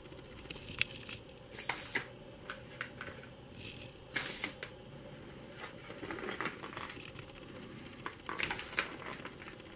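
Faint clicks and handling noises with three short bursts of high hiss, each about half a second long, about 2, 4 and 8.5 seconds in.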